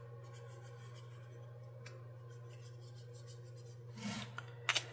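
Felt-tip marker scribbling on paper in quick back-and-forth strokes as small shapes are coloured in, with a few light knocks about four seconds in and near the end.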